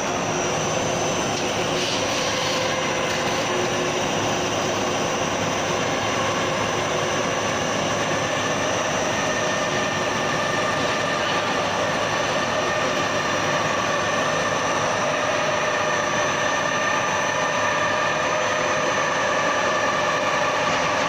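CNC lathe running steadily, a constant machining noise with a steady high whine on top.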